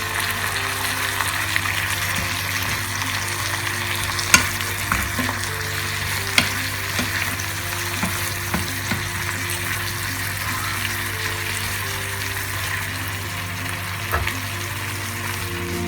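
Food sizzling in a frying pan as it is stirred, a steady hiss with a few sharp clinks of a utensil against the pan, the loudest about four and six seconds in.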